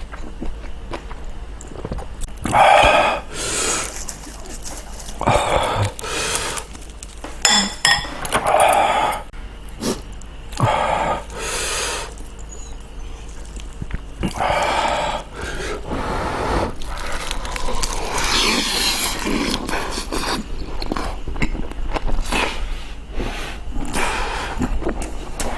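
Close-up eating sounds of kimchi stew and rice: a series of short, breathy mouth noises of slurping and chewing every few seconds, the longest near the end, over a steady low hum.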